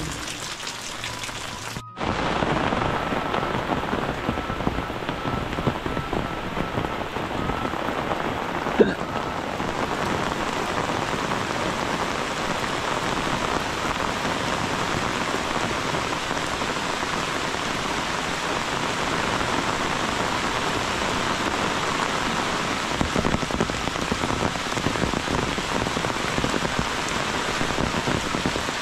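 Rain dripping off roof tiles, fairly quiet at first. After a cut about two seconds in, a louder, dense and steady downpour hisses on, with one sharp click about nine seconds in.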